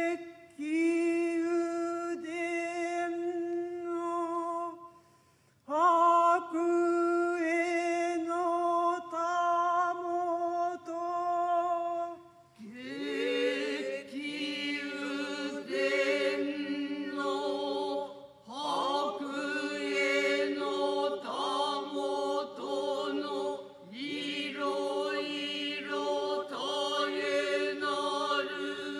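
Noh chanting (utai) in the Kanze style, sung unaccompanied for a shimai dance. A single voice chants long, level, held notes in two phrases with a short break between them; about 13 seconds in, the seated chorus joins with lower voices in unison, and the chanting grows fuller.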